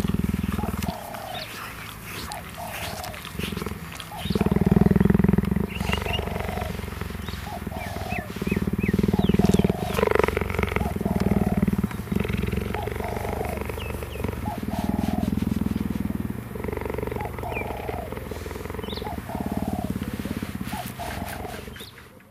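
Cheetah purring in long low swells that rise and fall with its breathing, with a faint short call repeating at a regular pace behind it.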